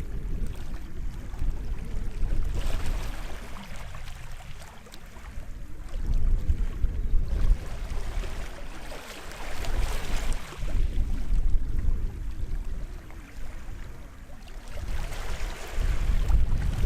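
Small waves washing in on the shore, the hiss swelling and fading every few seconds. Wind rumbles on the microphone underneath.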